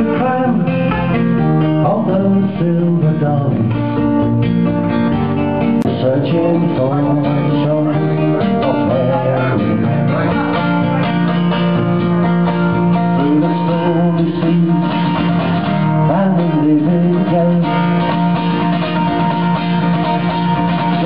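Nylon-string classical guitar strummed and picked in a continuous song accompaniment, with a man's voice singing over it at times.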